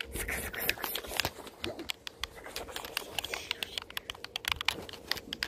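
Keyboard typing: a run of uneven key clicks, several a second.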